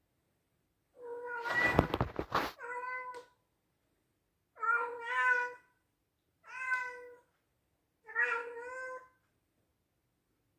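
A Scottish Straight cat meowing loudly four times. The first meow is longer, with a loud rough burst of noise over its middle; the three that follow are shorter and spaced a second or so apart.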